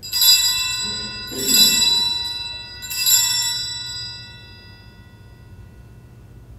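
Altar bells (Sanctus bells) rung three times in slow succession, each ring a bright cluster of tones fading out before the next, the last dying away a couple of seconds later. They mark the elevation of the chalice at the consecration.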